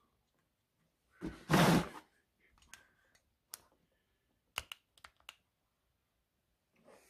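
A short, loud burst of rustling or breathy noise about a second and a half in, then a handful of sharp clicks spread over the next few seconds, the kind made by handling parts and the camera on a workbench.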